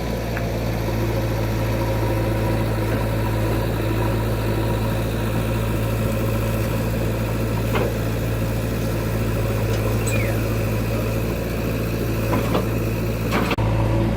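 Heavy diesel engine idling steadily, with a few faint clicks over it.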